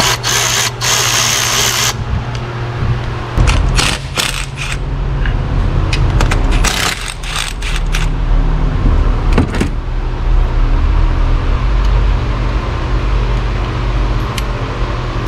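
Cordless power ratchet and cordless impact driver spinning bolts out of a car's intercooler mounts in short runs, a long run about a second in and another about halfway, with metallic clinks of sockets and bolts in between. A steady low hum sits under it all.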